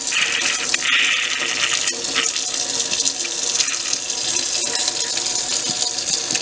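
Kitchen faucet running steadily into a stainless steel sink, with a few louder splashes as a soapy hand washes a forearm by the stream.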